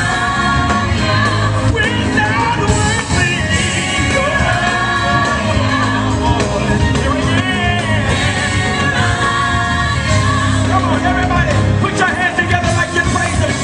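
Gospel choir and lead vocalist singing live with instrumental backing. The voices slide and waver in pitch over a steady bass line.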